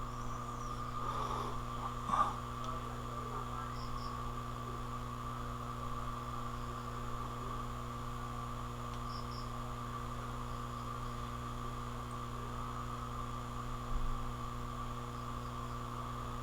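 Steady electrical mains hum with several even tones, plus a short knock about two seconds in and a faint bump near the end.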